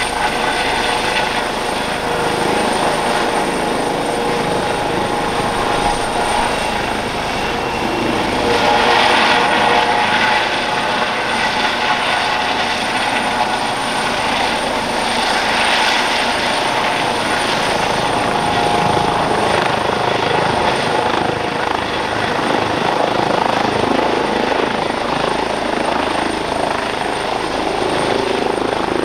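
Airbus H135 helicopter hovering low and settling to land: steady rotor noise with a high, even turbine and fenestron tail-rotor whine, swelling slightly now and then.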